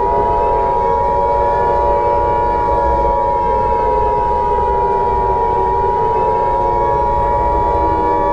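Emergency Alert System attention signal: a steady electronic alarm of two tones sounded together, over a lower wavering drone.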